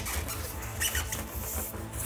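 Polystyrene foam packing insert squeaking and rubbing against the box as it is lifted out, over background music with a steady low beat.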